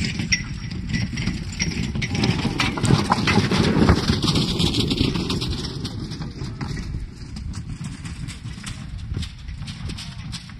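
Percheron–Standardbred cross draft horse moving over snow while dragging a wooden logging sled: a run of hoofbeats and knocks over the sled's rumble, loudest about four seconds in as it passes close, then fading as it pulls away.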